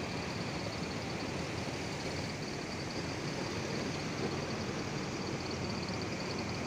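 Diesel engine of a Mercedes-Benz BlueTEC 6 intercity coach running steadily as the coach pulls slowly away.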